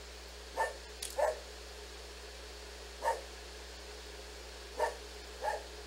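Dog barking: five short single barks, spaced unevenly, two close together about a second in and two near the end.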